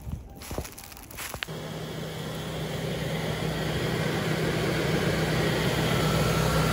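Steady hum from the engine bay of a 1999 Mercury Grand Marquis running with its hood up and headlights on, growing gradually louder. It starts about a second and a half in, after a few light knocks.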